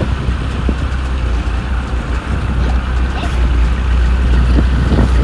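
Mariner outboard motor running steadily, a constant low drone as it drives the boat along.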